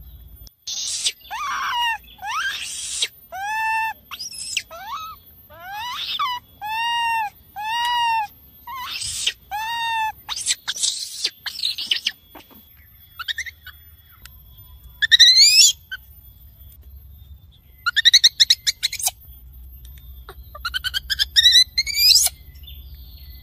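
Infant monkey calling for its mother, a lure call. It gives a run of high, whistle-like calls that rise and fall in pitch, about one a second, then shrill rising screeches with quick trills at longer intervals.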